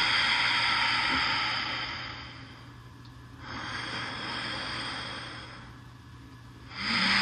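Slow, deep breaths close on the microphone during a mindful-breathing hold in yoga: three long, hissing breaths of about two seconds each. The first and last are loud and the middle one, about three and a half seconds in, is quieter. A faint steady low hum runs underneath.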